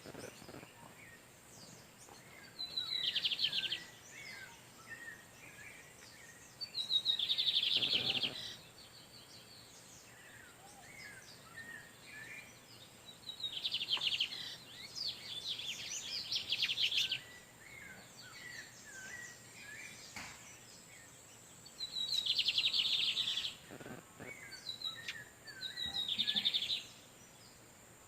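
Male lined seedeaters singing back and forth: about half a dozen short, buzzy, rapid trills a few seconds apart, with softer chirping notes between them.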